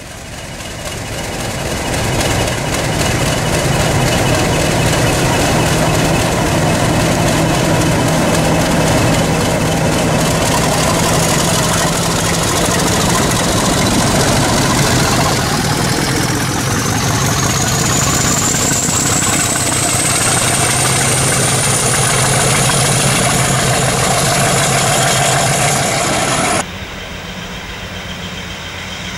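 Class 50 diesel locomotive 50015's English Electric 16-cylinder engine running loud and steady under power, building up over the first couple of seconds, with a high whine rising steadily through the second half. Near the end the sound cuts abruptly to a quieter, more distant diesel locomotive.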